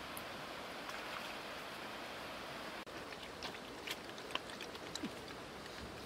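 Steady rush of flowing river water, with a few faint clicks in the second half.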